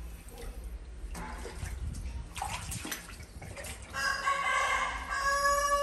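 A rooster crowing: one long call starting about two-thirds of the way in, held to the end. Before it, faint water noises.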